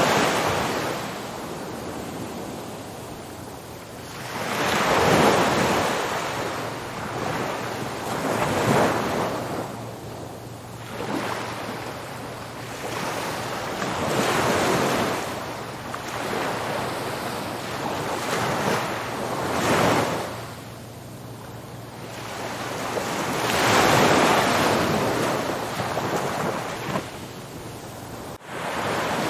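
Ocean waves breaking on a beach: surges of surf swell and wash back every few seconds, with a brief dropout near the end.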